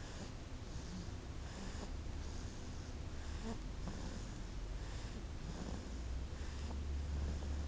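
Snoring in a quick, even rhythm, about one and a half breaths a second, with a steady low rumble beneath that grows stronger near the end.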